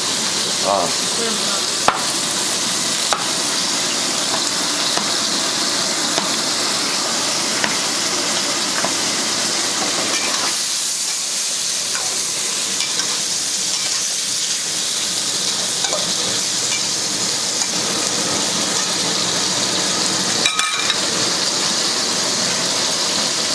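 Chunks of pork sizzling steadily in oil in a wok over a gas burner, with a metal spatula now and then scraping and tapping against the pan as they are stirred.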